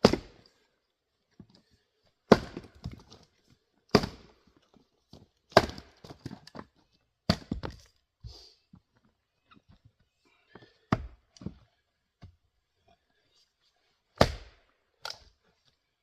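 A 3.5-pound Craftsman single-bit axe striking a knotty round of firewood, about seven heavy blows with a longer pause in the middle. Each blow is followed by smaller knocks and clatter of wood: repeated chopping because the knots keep the round from splitting easily.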